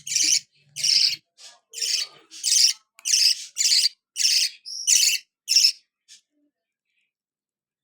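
Budgerigar chick giving a run of raspy, high chirping calls, about two a second, while being fed; the calls stop about six seconds in.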